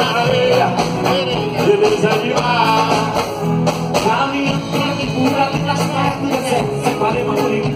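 Live axé band music with a male lead singer, heard from within the crowd.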